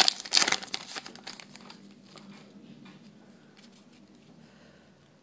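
Yu-Gi-Oh booster pack's foil wrapper crinkling loudly as it is handled and pulled off the stack of cards, for about the first second. After that, only faint rustling of the cards.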